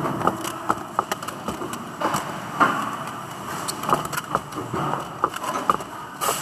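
Irregular clicks and clatter of thin yellow plastic parts handled and sorted by gloved hands, over the steady hum of factory machinery.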